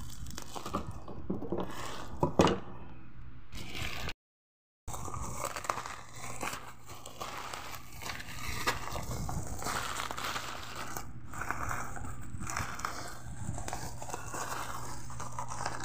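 Plastic packaging crinkling and rustling as it is handled by hand: cellophane wrapping and a thin black plastic bag, with irregular crackles and one sharper crunch. The sound cuts out completely for about half a second around four seconds in, over a steady low hum.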